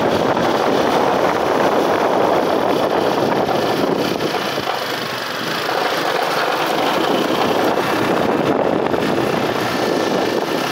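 Motorcycle engine running as the bike rides along, mixed with wind and road noise; the sound eases briefly about five seconds in, then picks up again.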